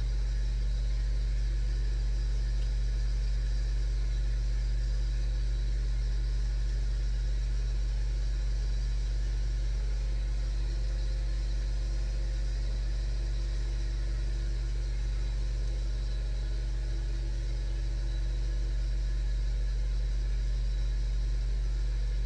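A steady low hum that stays the same throughout, like a running motor or fan.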